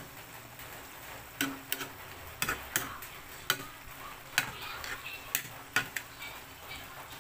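A long metal ladle knocking and scraping against the side of a metal cooking pot while chopped jackfruit leaves are stirred in boiling coconut milk: a run of about ten sharp, irregular clicks.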